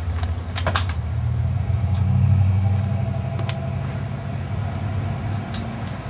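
Microwave oven running with a steady low electrical hum that swells louder about two seconds in. A quick run of sharp clicks comes a little under a second in, and a few single clicks follow later.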